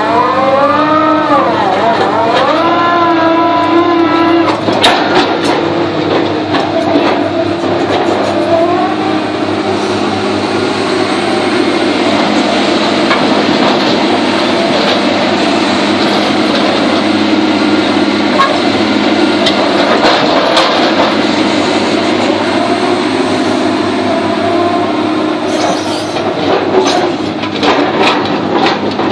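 Soilmec rotary drilling rig running while it drills: diesel engine and hydraulics working under load, the engine pitch dipping and rising again in the first few seconds, then a steady mechanical din. Sharp metallic clanks come through about five seconds in and several more near the end.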